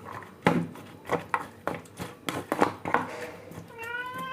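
A string of sharp clicks and knocks, then a domestic cat meowing once near the end with a single long, wavering meow.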